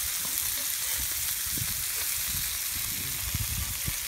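Fish frying on a flat pan, a steady hissing sizzle, with low irregular rumbles underneath.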